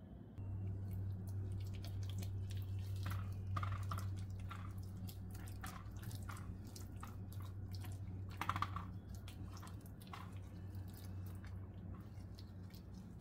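Marinated chicken pieces being pressed and spread by a gloved hand in a pot: irregular wet squelches and sticky clicks. A steady low hum runs underneath.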